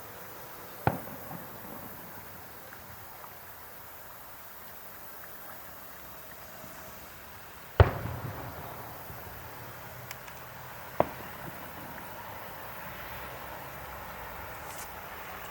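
Fireworks bursting: three separate sharp bangs, the second, about eight seconds in, the loudest and followed by a short rumbling tail.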